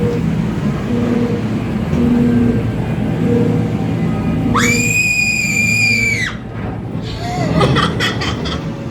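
Dark-ride vehicle rumbling along, with a low hum pulsing about once a second. About four and a half seconds in, a piercing high scream-like cry sounds from the ride's effects and holds steady for under two seconds before cutting off. A quick flurry of clicks and knocks follows.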